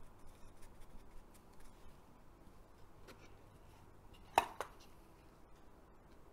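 A small hinged wooden box handled on a paper-covered table: faint light taps and rubbing, then a sharp double knock of wood a little past four seconds in as the opened box is moved.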